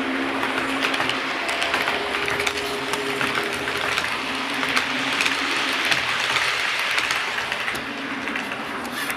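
00 gauge model train running past close up: a steady electric-motor hum and whine with the wheels clicking over the rail joints.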